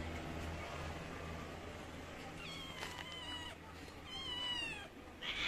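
A stray cat meowing twice, a couple of seconds in and again about four seconds in; the second meow is longer and falls in pitch.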